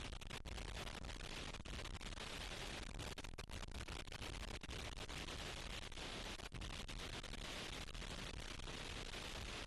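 Very strong wind blowing: a steady, dense rushing noise with no let-up.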